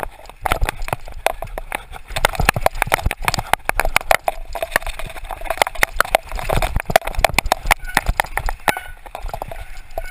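Mountain bike rattling over a rough, rooty dirt trail at speed: a dense, irregular clatter of rapid knocks from the bike's frame and wheels hitting bumps.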